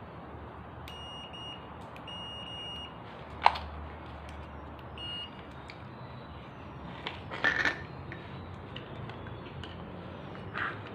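Multimeter continuity buzzer beeping in several short, uneven high beeps as the test probes touch the grinder's power cable, the tone showing an unbroken conductor. A sharp click about three and a half seconds in, the loudest sound, and a clatter of handling knocks near seven and a half seconds.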